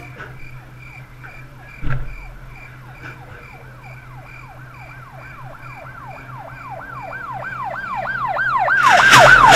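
Siren with a falling wail that repeats about two to three times a second and grows steadily louder. A sharp knock comes about two seconds in, and a loud burst of noise starts near the end.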